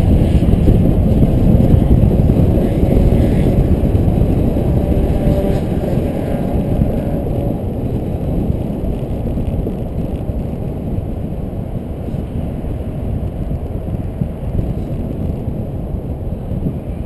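Wind rushing over a camera mounted outside a moving 2011 Ford F-150 EcoBoost pickup, with a low rumble of tyres and engine, gradually getting quieter.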